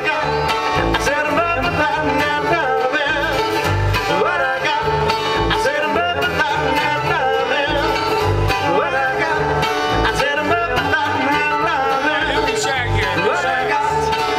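Live bluegrass-style band playing through a PA: mandolin, acoustic guitar and electric bass, with regular bass notes under busy plucked strings.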